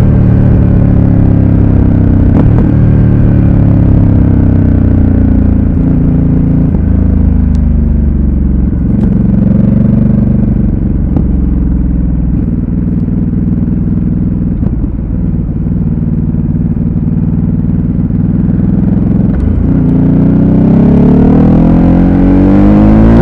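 Ducati Supersport S's 937 cc L-twin running under way, with wind buffeting the microphone. The engine note is broken by a series of quick gear changes as the revs ease off, then climbs steadily near the end as the bike accelerates hard.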